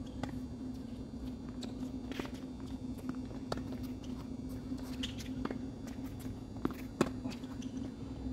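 Tennis rally on an outdoor hard court: sharp pops of racket strikes and ball bounces, a few seconds apart, with the loudest about seven seconds in, among footsteps and shoe scuffs on the court. A steady low hum runs underneath.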